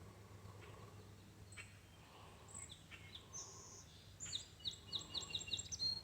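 Songbird calling: scattered short high chirps, then a quick run of about eight high notes, some five a second, starting about four seconds in. A faint steady low hum lies underneath.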